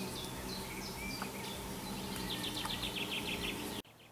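Small birds chirping in short repeated calls, with a rapid trill about two seconds in, over a steady low hum. Near the end the sound cuts off abruptly to a much quieter background.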